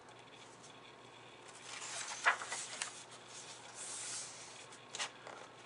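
A paper page of a picture book being turned and smoothed flat by hand: a soft rustle with a sharp click about two seconds in and another near the end.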